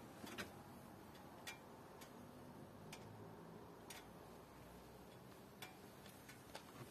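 Near silence, broken by faint sharp clicks at uneven intervals, roughly one a second.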